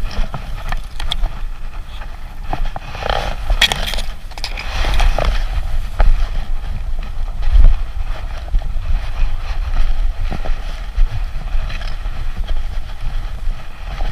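Uneven rumble and knocks from a camera strapped to a dog's chest as it moves, with rustling as tall grass brushes against the camera housing, heaviest a few seconds in.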